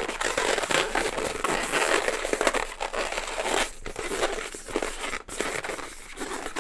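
Inflated latex modelling balloons being twisted and squeezed in the hands, a continuous rubbery rubbing and crinkling with many small crackles.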